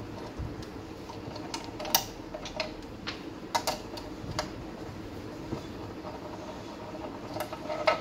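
Sharp little metal clicks and taps of a hex Allen key working the M4 bolts out of an antenna bracket: scattered clicks, several between about two and four and a half seconds in and a couple more near the end, over a steady low background hum.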